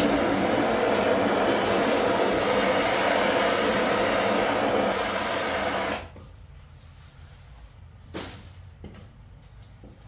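Handheld gas torch burning with a steady hiss, lit at the very start and shut off suddenly about six seconds in, preheating the metal before welding on a fitting.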